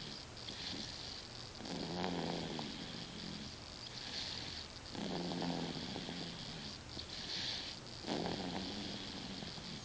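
Snoring in slow, regular breaths about three seconds apart: a low, rough snore on each breath in, then an airy hiss on each breath out.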